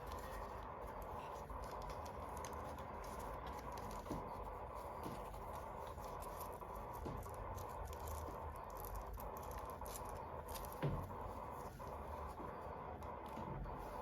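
Hands handling small plastic toys and packaging: scattered light taps, clicks and scratches, with a firmer knock about eleven seconds in, over a steady background hiss.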